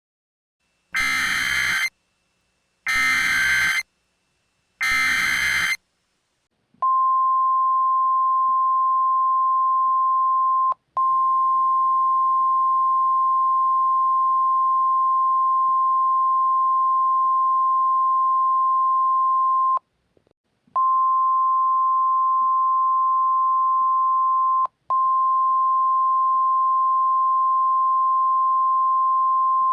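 Simulated Emergency Alert System tones: three short bursts of the SAME digital header's harsh data screech, about a second each, then the NOAA Weather Radio warning alarm, a single steady high beep of about 1050 Hz that runs on with two brief dropouts and a gap of about a second partway through.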